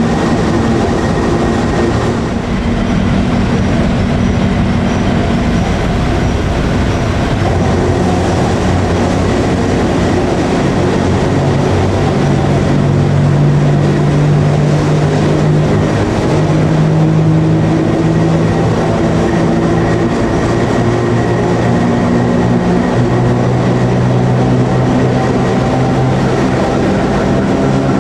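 FS E.656 rheostatic electric locomotive hauling a train: a steady running rumble with the hum of its traction motors, several low humming tones that shift to new pitches every few seconds.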